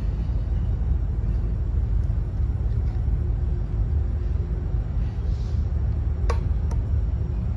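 Steady low rumble of a passing train. Two short sharp clicks come about six seconds in.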